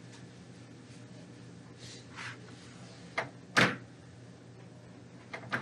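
Chalkboard being wiped clean, with a brief scrubbing swish about two seconds in, then a sharp knock, the loudest sound, past the middle, and a few small clicks near the end. A steady low hum lies underneath.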